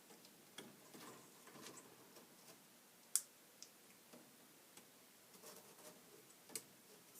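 Faint, scattered clicks and light handling noise as the wire connectors are plugged back onto a furnace draft inducer, the sharpest click about three seconds in.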